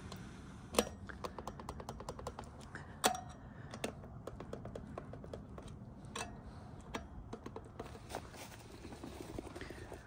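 Spoke torque wrench tightening motorcycle wheel spokes: runs of quick ticks from working the wrench, with a sharper click every few seconds as it reaches its set torque.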